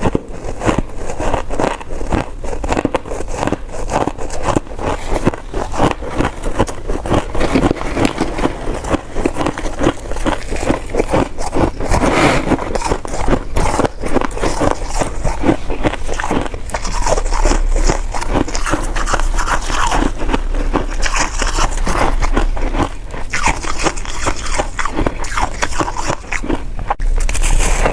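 A person chewing soft, sticky coconut rice cake close to the microphone: a continuous run of quick mouth clicks and smacks.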